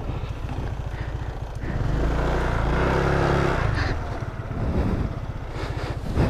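Scooter engine with an even low putter at low revs, given throttle about a second and a half in: the revs rise and hold for a couple of seconds, then drop back as it crawls over a rough dirt trail. A short louder burst of throttle comes near the end.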